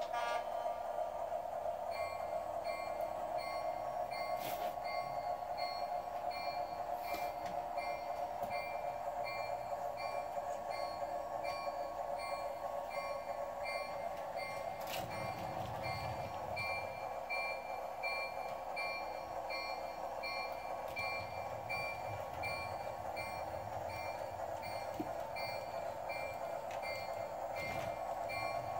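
Electronic sound system of a Flyer Chief Baldwin diesel switcher model: steady diesel engine rumble from the locomotive's small speaker, with a short bell-like tone repeating a few times a second.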